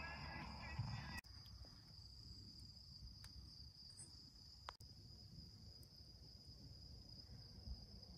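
Crickets trilling steadily in a faint, high, continuous chirr. In the first second a muffled low sound lies under it and cuts off sharply.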